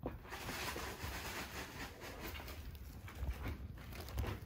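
Thin plastic bag crinkling and rustling as a cat moves around inside it and paws at it, with a steady stream of small crackles.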